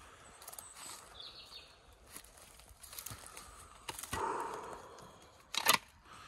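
Footsteps crunching through dry leaf litter and twigs on a woodland floor, with one sharp crack near the end.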